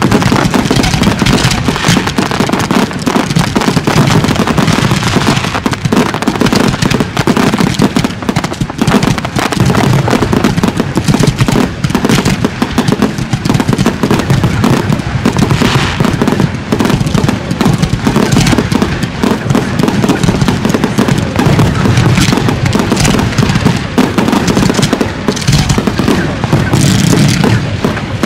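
Consumer-style fireworks cakes firing in rapid, continuous succession: a dense stream of sharp reports with no pause.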